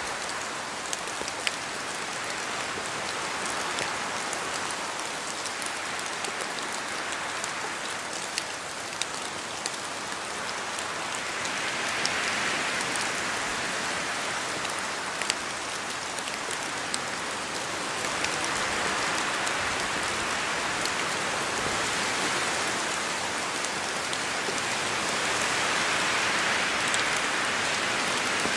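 Steady rain in a forest, with wind that swells and eases every several seconds and scattered sharp drops falling from the trees. The rain grows slightly heavier toward the end.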